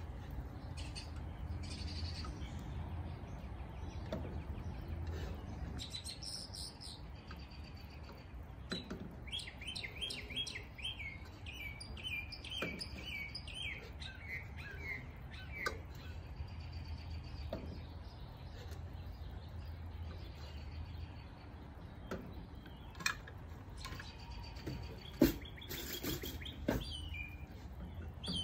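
Small birds chirping in runs of short, high tweets, busiest in the middle, over a steady low hum. A few sharp clinks of a spoon knocking against a cooking pot, the loudest near the end.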